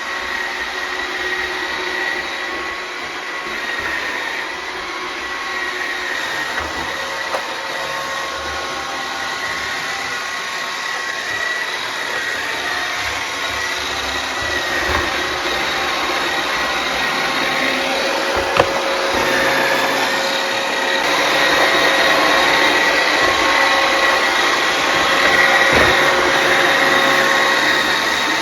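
iRobot Roomba robot vacuum running across the floor: a steady whir of motors and brushes with a high whine, getting louder in the last third, and a couple of sharp clicks.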